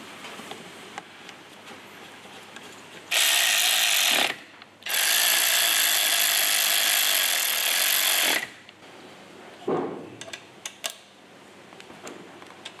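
Cordless electric ratchet running down the valve body bolts on an automatic transmission: a short run of about a second, then a longer one of about three and a half seconds. Light clicks and knocks of tools and bolts come before and after.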